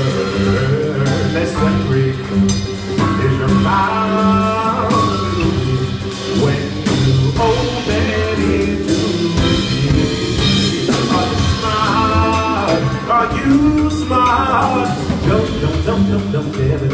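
Live blues-jazz band playing: upright double bass walking in the low end, drum kit with cymbals, and electric guitar, with a bending melodic lead line.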